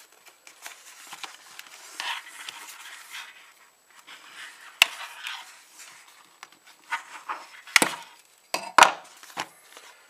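Packaging being cut open: a knife working through the plastic fastener that holds a nylon pocket organizer to its cardboard backing card, with rustling of card and fabric. Several sharp clicks and snaps come through, the loudest near the end.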